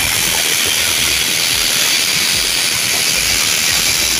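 Electric hammer drill in hammer mode boring into a concrete wall, running loud and steady.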